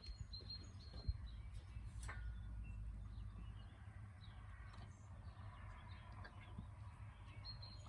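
Faint bird chirps over a low, steady background rumble.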